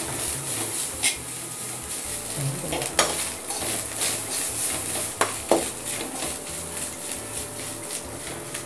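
A metal spoon stirring grated coconut and onions frying in oil in a metal kadai: a steady sizzle, broken by a few sharp clinks and scrapes of the spoon against the pan.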